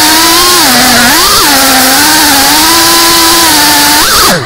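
Brushless motors of an FPV racing quadcopter whining loudly in flight, the pitch jumping up and down with the throttle and dropping sharply at the very end. The quad is flying shaky and unstable because of a broken gyro.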